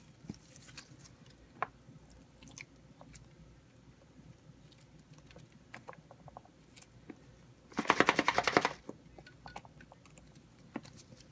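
Faint scattered clicks and taps of utensils against a container. About eight seconds in comes one short, loud pulse of a stick blender run in cold process soap batter, under a second long, mixing in titanium dioxide.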